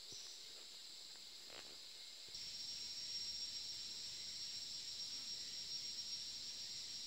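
Steady, high-pitched chorus of forest insects such as crickets or cicadas, growing louder a little over two seconds in.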